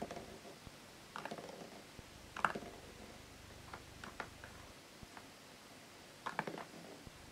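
Small plastic toy parts clicking and tapping against each other and the tabletop as they are handled, in several short scattered clusters of light clicks.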